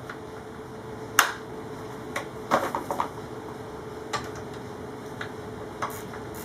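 Scattered sharp metal clicks and clinks of an Allen key and chain-adjuster hardware being handled and fitted, the loudest about a second in and a quick cluster a little later. A steady faint hum runs underneath.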